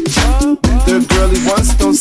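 Electronic dance music with a heavy bass beat and a stepping synth line, with no vocals in this stretch.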